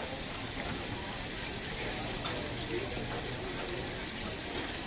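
Chicken pieces deep-frying in hot oil, a steady sizzle with a few faint crackles.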